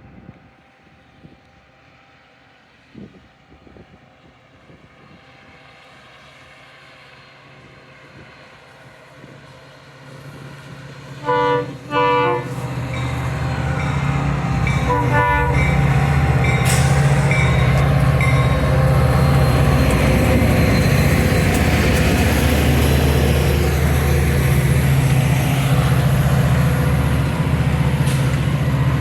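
Metra commuter train's diesel locomotive horn gives four short blasts, a friendly salute from the engineer: two loud blasts about eleven seconds in, then two fainter ones a few seconds later. The train then passes close by with a loud, steady diesel rumble and wheel noise.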